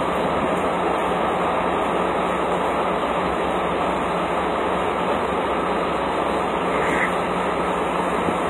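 Steady rushing of diesel fuel flowing through the pump hose and nozzle into the truck's tank, with a low steady hum underneath.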